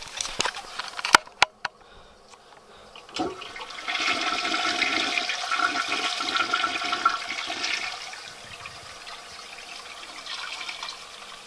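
Toilet flushing: a couple of sharp clicks about a second in and a knock at about three seconds, then water rushing loudly through the bowl for about four seconds, easing off near eight seconds into a quieter steady run of water.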